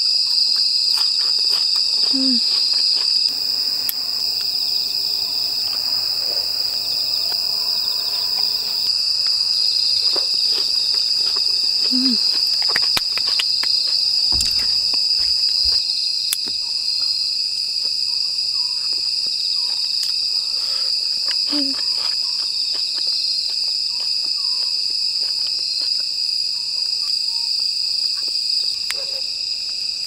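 A steady chorus of summer-night insects trilling without a break, high-pitched and loud. Scattered light clicks and taps of chopsticks and scissors at the table cut in here and there, most of them about halfway through.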